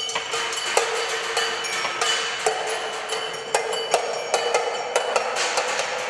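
Small percussion ensemble playing a tabletop piece: quick, irregular taps and clicks struck on the table and small objects, over a steady ringing tone.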